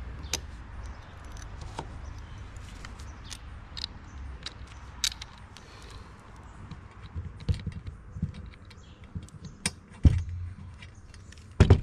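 Small metal clicks and clinks of a quarter-inch self-tapping hex-head screw being handled, fitted into a drill's nut driver and set against a steel strut channel, with two heavier knocks near the end.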